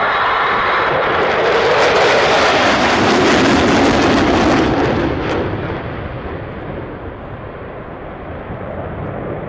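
Jet aircraft flying past, rising to its loudest a few seconds in and then fading away.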